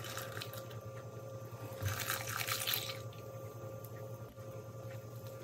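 Milk being poured slowly from a glass bowl into a glass bowl of flour: a soft liquid pouring, louder for about a second near the middle. A steady faint hum runs underneath.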